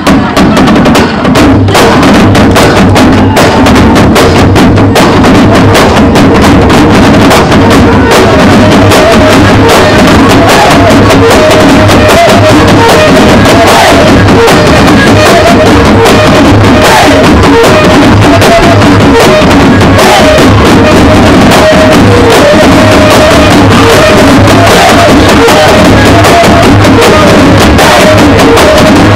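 Ensemble of tifa hand drums beaten by many drummers together in a fast, continuous rhythm, loud throughout. From about six seconds in, a wavering melodic line rides over the drumming.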